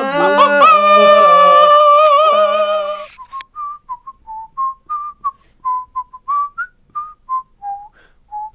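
Music ends on a long held chord about three seconds in. Then a person whistles a slow tune of short single notes that hop up and down in pitch, with brief gaps between them.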